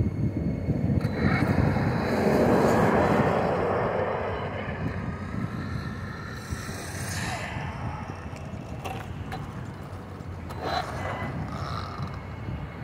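Arrma Limitless brushless electric RC speed car driving on asphalt: a broad motor and tyre noise that swells to its loudest about two to four seconds in, then fades, with a few short ticks later on.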